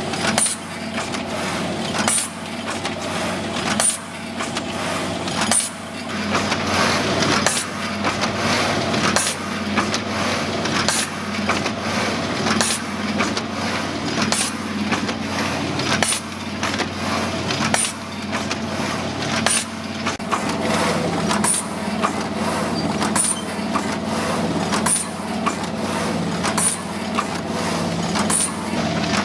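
Automatic stand-up pouch filling and packing machine running, a steady mechanical hum broken by a sharp clack repeating evenly about every two seconds.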